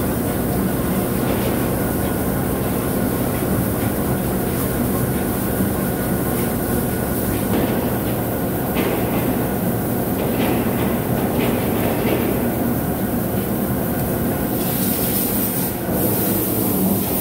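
Large CNC vertical turning lathe running, its chuck spinning a big steel separator drum: a steady mechanical drone with a low hum and light, scattered clicks. A brighter hiss comes in near the end.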